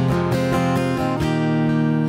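Acoustic guitar strummed in a steady, slow pattern, its chords ringing, with a chord change a little past a second in.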